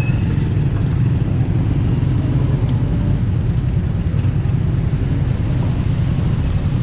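Steady low rumble of a motor vehicle running, with no change in pace.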